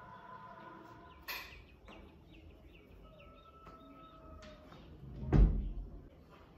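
A few faint clicks and knocks, then a single loud, low thump about five and a half seconds in.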